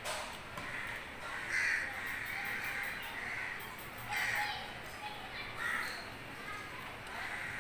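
Crows cawing, one short hoarse call about every second, over the soft scraping of cheese being grated on a metal hand grater.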